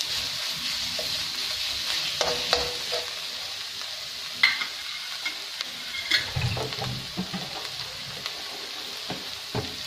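Vegetables and ginger-garlic paste sizzling in oil in a steel wok on high flame, a steady hiss. A metal ladle clinks against the pan a few times.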